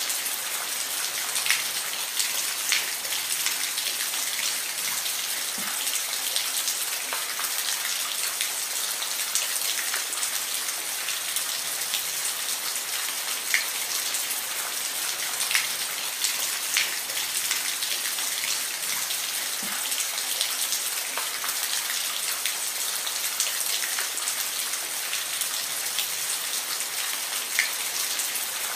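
Steady rain falling, an even hiss with many distinct drops ticking close by on a hard surface.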